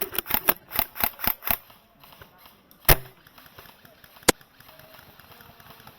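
Airsoft gunfire: a quick string of about eight sharp shots in the first second and a half, then two single louder cracks about a second and a half apart.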